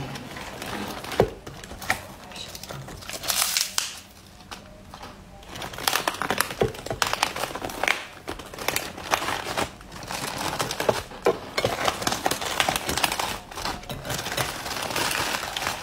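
Crisp fresh lettuce leaves crinkling and crackling as they are handled and folded by hand around a filling to make a leaf-wrapped rice parcel (fanbao). The crackling is sparse at first, pauses briefly, then runs almost continuously through the second half.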